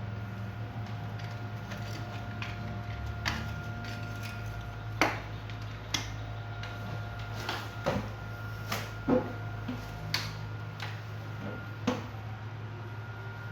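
Hard toy vehicles being handled, giving about ten sharp clicks and knocks at uneven intervals, the loudest about five seconds in and just after nine seconds, over a steady low hum with a faint high whine.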